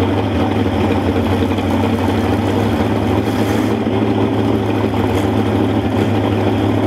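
Pickup truck engines idling steadily.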